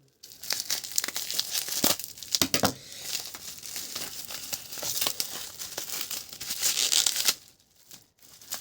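A memory card's retail packaging being torn and crinkled open by hand: a dense run of rips and crackles that falls quiet for a moment near the end.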